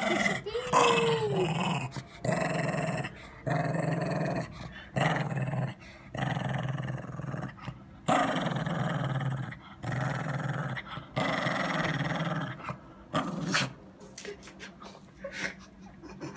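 Small long-haired dog growling angrily while its hair is combed: long growls one after another with short breaks between them, stopping near the end.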